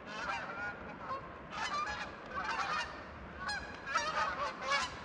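A flock of Canada geese flying over, honking in many overlapping calls that come in bunches, loudest toward the end. The flock is on migration.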